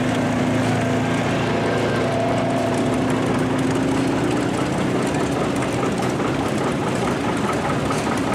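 Engines of several vintage farm tractors, Farmalls and a John Deere among them, running together at low speed as a steady mix of engine notes. A Polaris Ranger XP side-by-side utility vehicle drives close past at the start.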